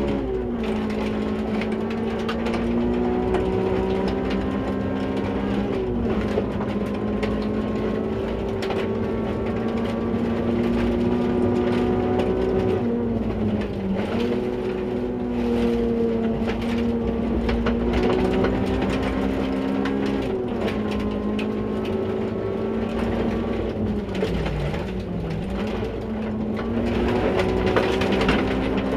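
Rally car engine heard from inside the cockpit, running hard at steady revs with brief dips and recoveries about 6, 13 and 25 seconds in, over rough gravel and tyre noise with scattered stone clicks.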